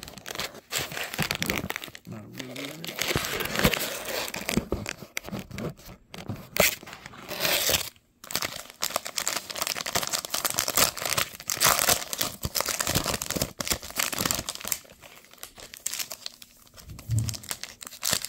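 Plastic trading card pack wrappers crinkling and tearing as hands rip the packs open, with a brief pause about eight seconds in.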